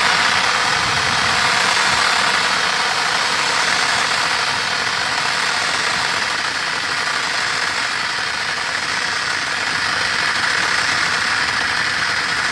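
Pressurized water training extinguisher discharging through its hose nozzle, a steady hissing spray that holds level and does not let up.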